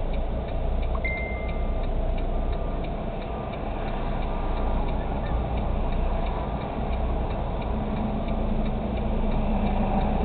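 A tractor-trailer's diesel engine running at low speed, heard from inside the cab, with a steady, evenly spaced ticking over it and a brief high tone about a second in.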